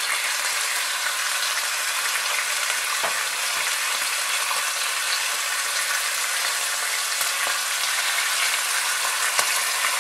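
Bacon strips sizzling in a hot frying pan with garlic olive oil as more strips are laid in: a steady hiss with a few faint ticks of spitting fat.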